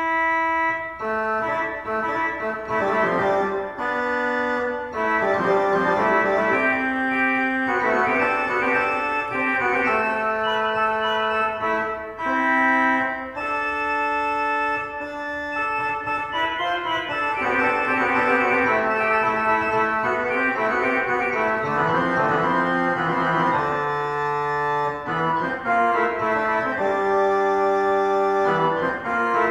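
Organ music: held chords with a moving melodic line above them, starting suddenly out of silence.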